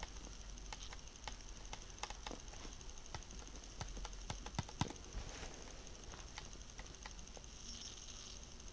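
Faint, irregular taps and clicks of typing on a handheld device, one to a few a second, over a low steady hum.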